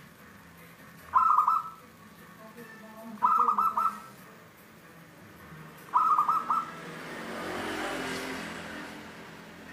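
Caged zebra dove (perkutut) cooing three short song phrases about two seconds apart, each a quick run of several clear notes. Near the end a broad rushing noise swells and fades.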